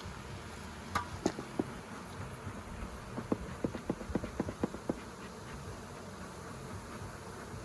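Honeybees buzzing around an open hive, with a few sharp knocks about a second in and a quick run of light taps between about three and five seconds in.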